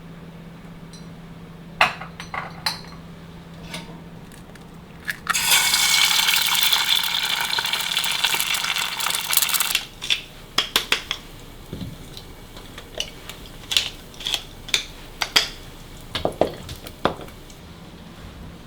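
Kitchen handling sounds: light clinks and knocks of glass and utensils, with water running steadily for about four seconds in the middle.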